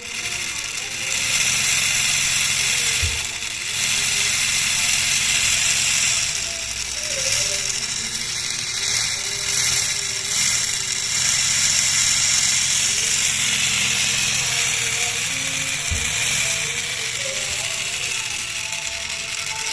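A miniature two-cylinder engine model built from PVC pipe, running with a fast, continuous mechanical clatter of its moving parts. Background music plays under it.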